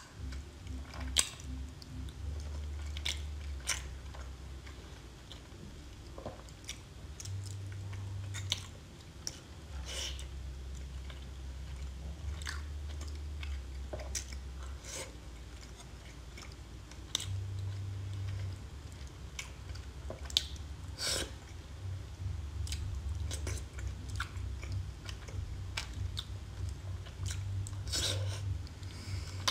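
Close-miked chewing and biting of soft shellfish (scallops and mussels in a thick sauce), with many scattered sharp, wet clicks and occasional crunches.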